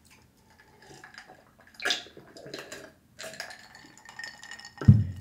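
Ice cubes clinking and water sloshing in a drinking glass as a man drinks from it, with small clicks and taps throughout. A short, deep thump comes near the end.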